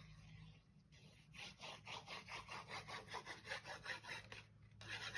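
The tip of a liquid glue bottle rubbed back and forth across the back of a piece of paper, spreading glue in quick, quiet scraping strokes, about four or five a second for about three seconds. A brief louder scrape comes near the end.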